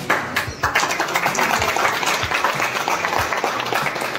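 A crowd clapping in steady, continuous applause.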